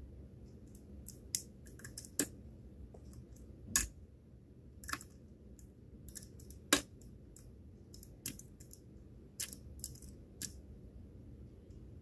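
Hook pick and tension wrench working the serrated and spool pins of a pin-tumbler lock cylinder: small, irregular metallic clicks as the pick lifts and sets pins, a few of them louder, one sharp click about seven seconds in.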